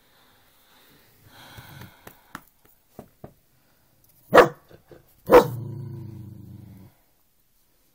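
A dog barking at its own reflection in a mirror: two sharp barks about a second apart, the second trailing into a low, drawn-out growl.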